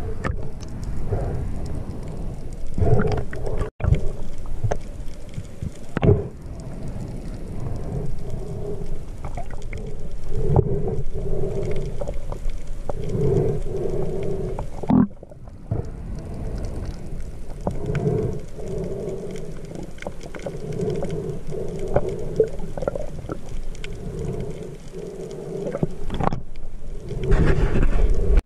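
Muffled underwater sound picked up by a submerged camera: a low rumble of moving water with hollow tones swelling every second or two and a few sharp clicks, growing louder near the end.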